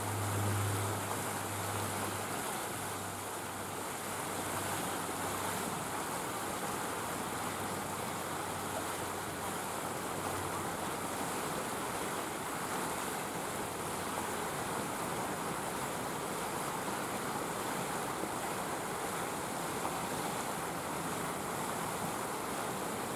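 Steady outdoor ambient noise, an even hiss with no distinct events, like wind or rushing water. A low hum fades out in the first few seconds.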